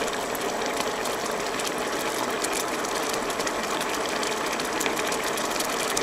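Bolognese sauce of minced beef and canned tomatoes sizzling and spattering in a hot frying pan, a dense steady crackle, as the tomato liquid boils off in steam.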